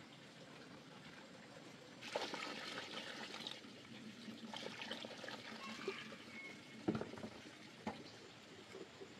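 Water splashing and trickling for about a second and a half, followed by scattered small clicks and a sharper knock near the end.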